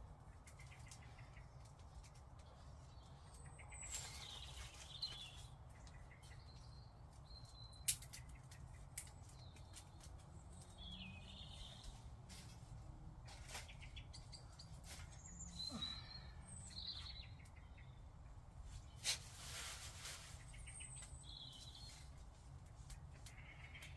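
Faint birds chirping over a steady low rumble, with a few sharp snaps and short rustles from kindling being handled and fed to a small wood fire.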